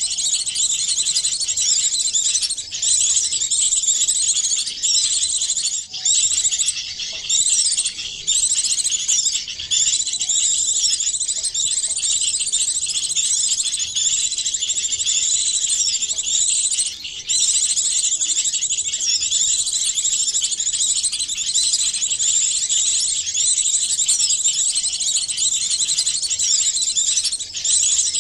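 Dense, continuous chorus of high-pitched small-bird twitters and chirps, many short sweeping notes overlapping with hardly a break: a bird-trapping lure recording that mixes the calls of several small songbird species.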